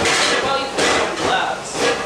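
Indistinct voices, unclear enough that no words can be made out.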